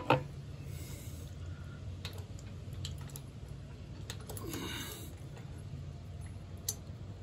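Small metal brake parts of a lawn tractor clicking and tapping as they are handled and fitted back into the brake assembly by hand. One sharp click comes right at the start, then scattered lighter clicks.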